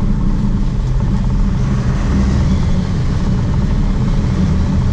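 Sportfishing boat's inboard engines running steadily under way, a low drone with a hiss of water and wind over it.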